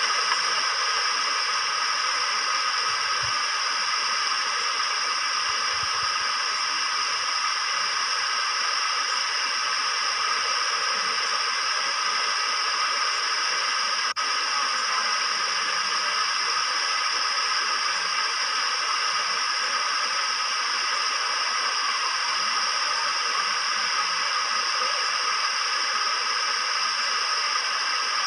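Steady, unchanging hiss like static, at an even level throughout.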